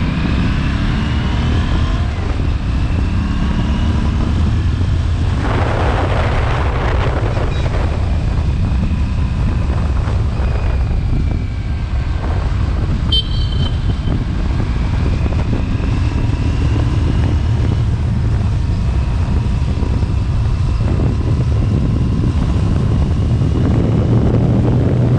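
Aprilia RS 457's parallel-twin engine through its stock exhaust, riding on the street. The engine note rises in pitch several times as it pulls through the gears, with rushes of wind noise along the way.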